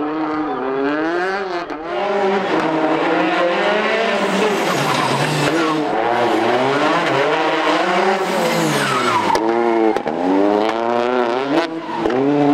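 Citroën DS3 rally car's engine driven hard through tight corners. The note climbs and falls over and over as the driver accelerates, lifts and changes gear, with a few sudden drops. The tyres hiss on the wet track beneath it.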